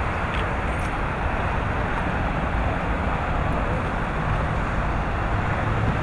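Steady outdoor background noise with a low rumble, with no distinct events.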